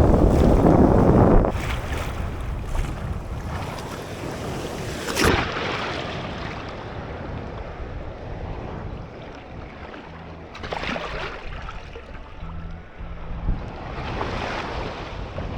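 Wind buffeting the microphone, loud for the first second and a half and then easing, over the wash of small waves on a sandy shore. A single sharp knock about five seconds in.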